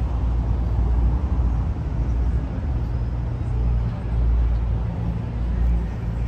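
City street traffic: a steady low rumble of vehicle engines.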